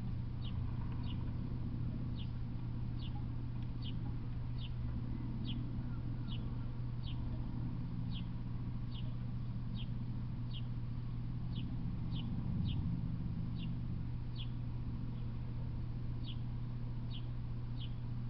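A bird repeating a short, high, downward-sweeping chirp about once or twice a second, over a steady low hum.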